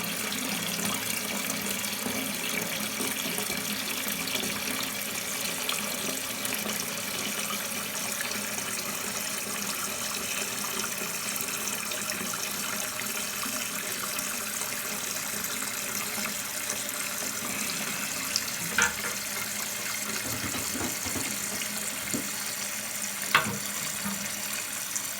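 Toilet tank refilling through a newly installed fill valve: a steady hiss of water, with a couple of faint knocks, that cuts off suddenly near the end as the tank reaches its fill level and the valve shuts.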